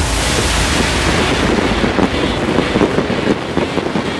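Fireworks display going off as one continuous wash of bursts and crackle, with a deep rumble in the first second giving way to rapid, dense crackling.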